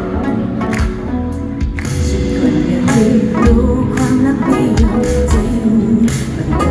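Live pop-rock band heard through the PA from the audience: drums and electric guitars over bass, with a female lead vocal coming in about halfway through.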